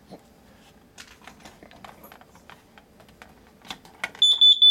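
Light clicks and taps, then about four seconds in a carbon monoxide detector's test alarm sounds: a quick run of loud, shrill beeps set off by pressing its test button.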